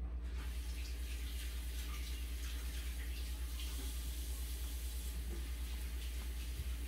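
A steady hiss starts just after the beginning and continues over a constant low hum.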